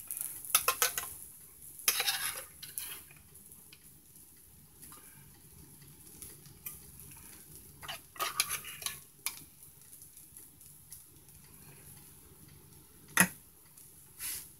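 A metal utensil scraping and clinking against a small metal pot, scooping out cooked peppers and onions. It comes in short bursts: one at the start, another about two seconds in, another about eight seconds in, and a single sharp clink near the end.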